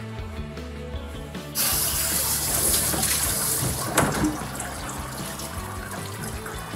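Water spraying from a handheld shower sprayer, rinsing a dog's coat in a grooming tub. The spray starts about a second and a half in and runs for a couple of seconds before tapering off. A sharp knock comes about four seconds in, over background music.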